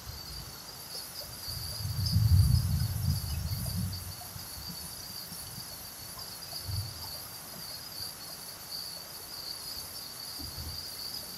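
Heavy thunderstorm rain pouring steadily, with a steady high-pitched chirring over it. A low rumble rises about two seconds in and fades by four, with a shorter one near seven seconds.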